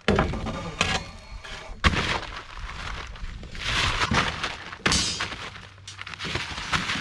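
Long steel rebar bars knocking and thunking against the wooden footing forms as they are laid in, a few sharp knocks with the loudest about two seconds in, and scraping noise in between.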